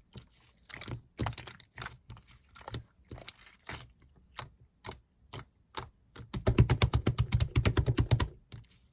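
Light, sharp tapping clicks: scattered single taps, then a quick run of about ten a second lasting nearly two seconds near the end.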